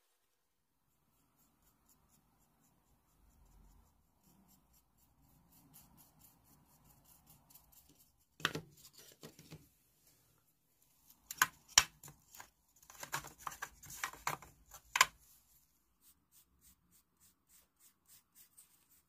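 Sharp clicks and taps of small wooden pieces being handled, loudest in a cluster through the middle. Near the end, a paintbrush makes soft scratchy strokes about two a second as it spreads wood stain on a small basswood piece.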